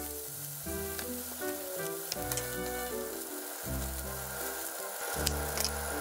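Whole cabbage stuffed with bacon sizzling in a frying pan with garlic and oil, a steady frying hiss. Two sharp knife knocks on a wooden cutting board come near the end.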